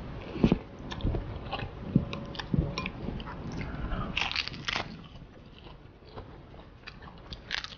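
Close-miked eating: chewing a mouthful of jajangmyeon noodles, then crisp crackling bites into a sheet of roasted seaweed about four seconds in and again near the end, with chewing in between.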